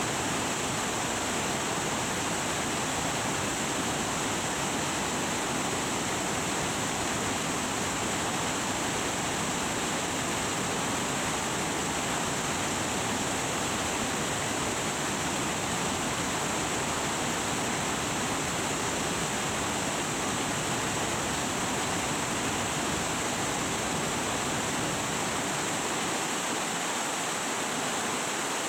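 Waterfall: heavy, fast water pouring and rushing in a steady, unbroken rush of noise.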